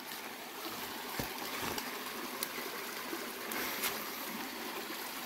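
Small woodland creek trickling over rocks: a steady wash of running water, with a few faint ticks scattered through it.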